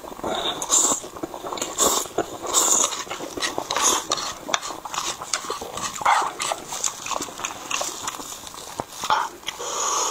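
A person slurping and chewing fried noodles close to a clip-on microphone: wet smacking and slurping in irregular bursts with sharp mouth clicks.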